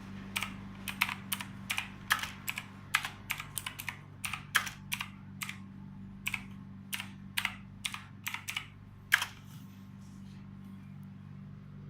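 Typing on an Imperion Mach 10 RGB mechanical keyboard: irregular sharp key clacks for about nine seconds, then stopping, over a steady low hum.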